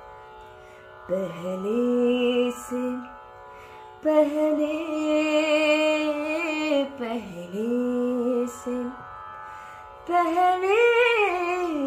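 A woman singing a ghazal in the Hindustani light-classical style: long, ornamented sung phrases that glide and waver in pitch, about four of them with short breaths between. A steady drone sounds beneath and carries on through the pauses.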